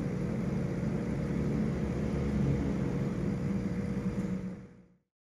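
Steady low rumble with a faint constant hum, fading in at the start and fading out near the end.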